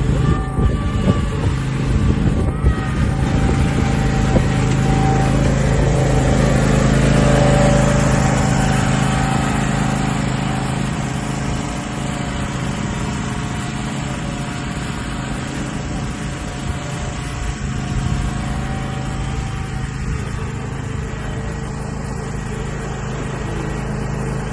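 Riding lawn mower engine running steadily, getting louder until about eight seconds in, then easing off a little.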